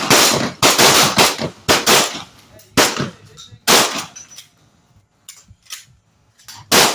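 Shotgun blasts fired in a rapid string, each with a short ringing tail. After a pause come a few fainter sharp cracks, then one more loud shot near the end.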